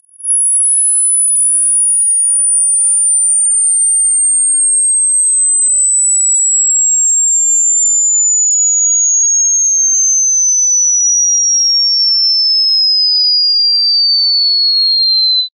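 Pure sine test tone for a high-frequency hearing test, very high-pitched and falling slowly in small steps so that it becomes audible to the listener at some point. It rises in quickly at the start, holds a steady loudness, and cuts off suddenly at the end.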